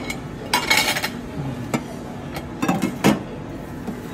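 Kitchen utensils and cookware clattering: a few sharp clinks and knocks, a cluster about half a second in and more near the three-second mark, over a faint steady hum.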